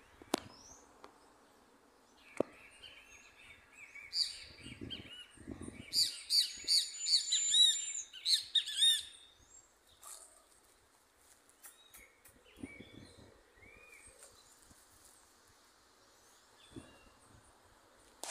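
High-pitched chirping calls from a small animal: a quick run of short repeated notes, about two or three a second, starting about four seconds in and lasting some five seconds, with one held thin whistle in the middle.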